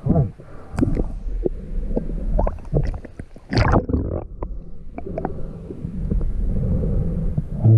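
Muffled underwater sound of a river: a steady low rumble of moving water, with scattered clicks and knocks and a louder rush of noise about halfway through.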